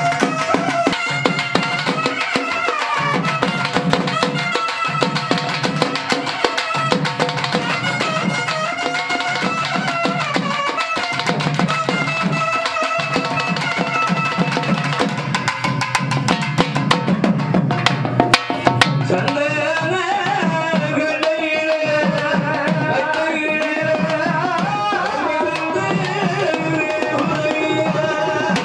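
Tamil magudam folk drum ensemble playing: frame drums and a large double-headed drum beaten with sticks in a fast, dense rhythm, with a wavering melody line over them.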